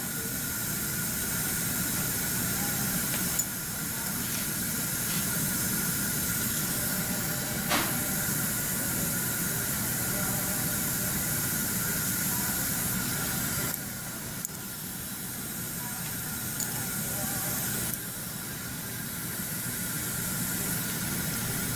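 Dental suction hissing steadily, with a faint steady whistle under it and a slight drop in level about two-thirds of the way in.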